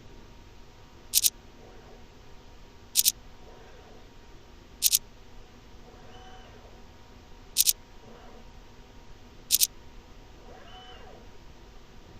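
Sharp double clicks, six of them about every two to three seconds, with a faint motor whir between them, as the Falcon CNC video measuring machine steps through an automatic measuring program.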